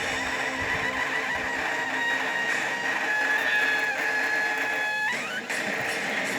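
High-pitched electronic buzzer tone held for about four and a half seconds. It drops slightly in pitch partway through, then slides sharply upward and cuts off, over a steady background hiss.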